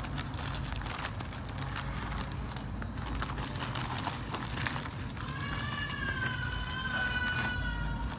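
Black plastic mailer bag crinkling as hands pull it apart and peel it away from a cloth bag inside, a run of small crackles. About five seconds in, a steady, slightly wavering tone from another source joins and lasts about three seconds.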